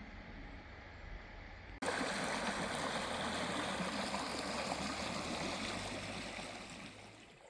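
Running water rushing steadily, starting abruptly about two seconds in and easing off near the end; before it, only a faint low hum.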